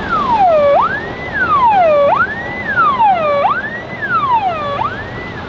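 Vehicle siren wailing, its pitch sweeping quickly up and then falling more slowly, repeating about every second and a quarter. Low vehicle noise runs underneath.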